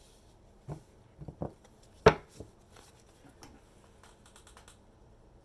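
Tarot cards being handled: a few soft taps, then one sharp card slap about two seconds in, followed by faint rustling.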